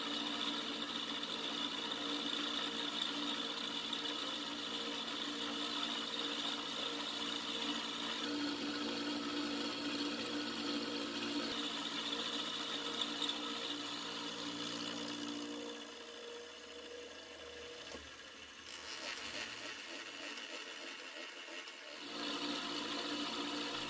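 Vertical milling machine taking light 30-thou passes with an end mill to cut a taper on a metal clamp jaw: steady spindle whine with cutting noise. It turns quieter for several seconds about two-thirds of the way through, then picks up again near the end.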